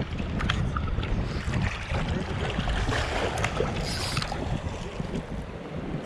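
Wind buffeting the microphone in a steady low rumble, over the hiss of water at the shore, with a few faint clicks.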